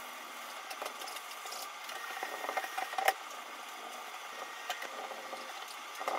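Hand scrubbing and wiping of bathroom surfaces, a steady rubbing with scattered light clicks and knocks and one sharper knock about three seconds in.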